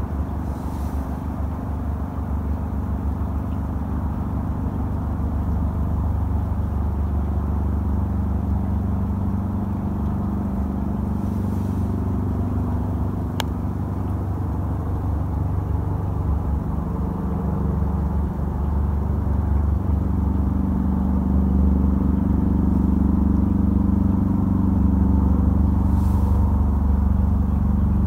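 Airbus H130 (EC130) single-turbine helicopter flying past overhead: a steady low rotor and turbine drone that grows gradually louder as it approaches. A single faint click is heard about halfway through.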